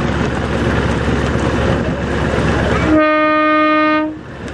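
Steady engine, wind and water noise on board a moving boat, then about three seconds in a single loud boat horn blast, one steady tone held for a little over a second before it cuts off.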